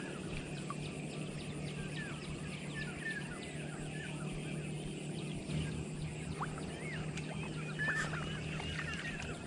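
A chorus of many short chirping animal calls, scattered and overlapping, over a steady low hum.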